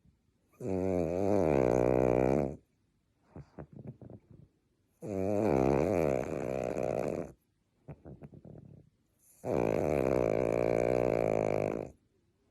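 A dog snoring in its sleep: three long snores about four and a half seconds apart, each a wavering, pitched sound lasting about two seconds, with faint short clicks between them.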